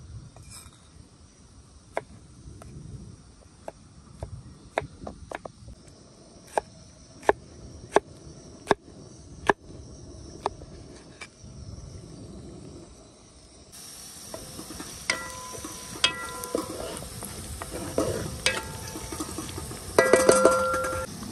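A heavy knife chopping tomatoes, sharp irregular strikes against the board. About two-thirds of the way through it gives way to sliced onions sizzling in oil in a pot, with a metal utensil clinking against the pot, several quick clinks near the end.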